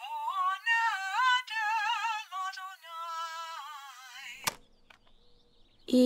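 A woman's very high singing voice, unaccompanied, with a wavering vibrato on held notes. It stops with a sharp click about four and a half seconds in, leaving faint room tone.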